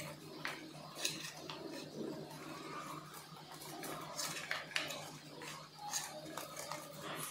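Irregular small clicks and rustles of plastic wire connectors and cable bundles being handled and pushed together inside an electric scooter's deck, over a steady low hum.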